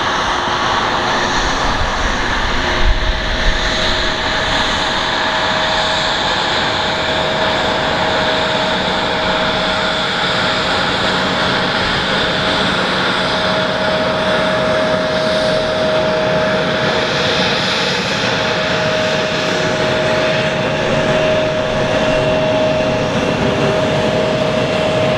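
Boeing 767's twin jet engines running at taxi power as the airliner taxis and turns onto the runway: a steady rush of engine noise with a held whine, a little louder near the end. A brief low thump about three seconds in.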